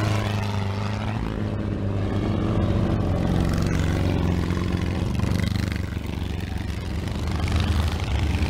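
Off-road Volkswagen Beetle race car engines running hard on a dirt track, a steady engine drone that gets louder near the end.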